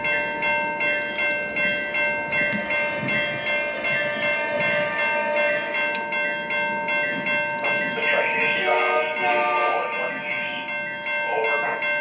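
Electronic bell of an O-scale model railroad ringing steadily, about two and a half strikes a second. A voice-like sound from the layout's sound effects comes in about eight seconds in.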